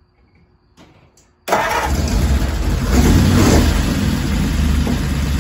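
Flathead V8 engine of a 1931 Model A Ford pickup catching and starting abruptly about a second and a half in, swelling briefly a second or so later, then running steadily at idle.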